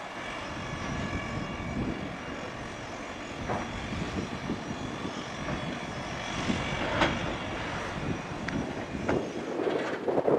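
CAT 336 excavator's diesel engine running steadily under load as it swings its demolition grapple, with a few sharp metallic clanks. Near the end, broken concrete starts to clatter and rattle as it is dropped from the grapple onto the pile.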